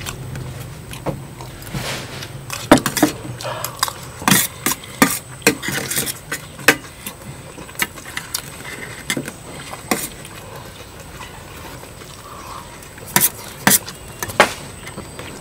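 Spoons clinking and scraping against plates while eating, in irregular sharp clicks: busiest in the first half, with a quick cluster of louder clinks near the end.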